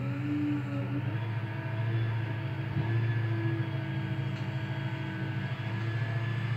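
Hook-lift bin truck's engine running steadily under load, with a hum of several steady tones as its hydraulics work the hoist arm to load a disposal bin; a little louder about two seconds in.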